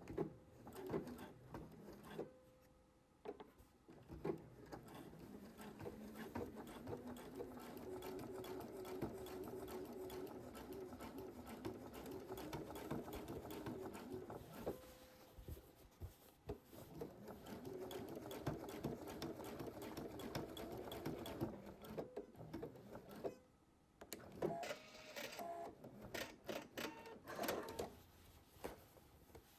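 Domestic sewing machine stitching a line of topstitching through denim, running steadily for two stretches of several seconds with a short stop between them. Scattered clicks and handling knocks come before, between and after the runs.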